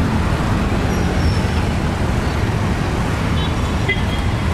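Steady city road traffic: motor vehicles running past with a heavy low rumble.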